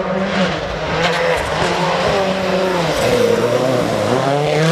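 Rally car engine running hard at high revs, its pitch sagging about three seconds in and climbing again near the end as the car accelerates.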